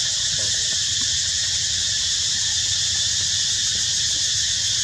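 A steady, high-pitched droning hiss with a low rumble beneath it, unchanging throughout.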